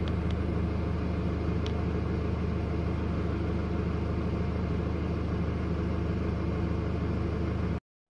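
Hyundai Grand Starex van's engine idling steadily, an even low hum heard from inside the cabin; it cuts off suddenly near the end.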